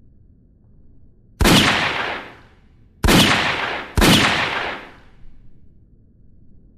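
Three loud, sudden bang-like sound effects, the last two about a second apart, each dying away over about a second.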